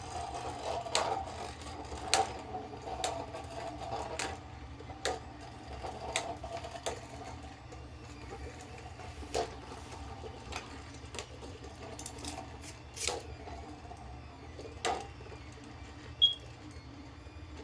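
Two 3D-printed Beyblade spinning tops whirring against each other in a battle, one of them spinning left. Sharp clicks mark their collisions at irregular intervals, about once a second. The steady whir slowly weakens as they lose spin.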